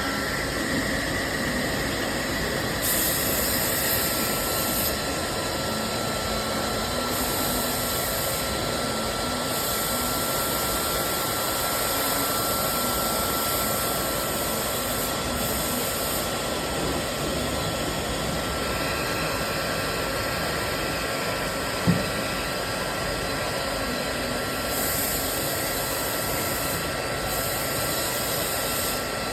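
A small motorised tool running steadily with a whir and a hiss, the high hiss cutting in and out every few seconds. A single sharp knock about twenty-two seconds in.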